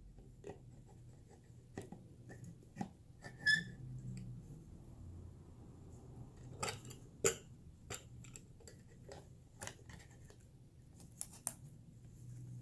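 Scattered light clicks and knocks of a plastic spool of braided fishing line being handled and fitted onto the metal shaft of a clamp-on line spooler, with one short squeak about three and a half seconds in.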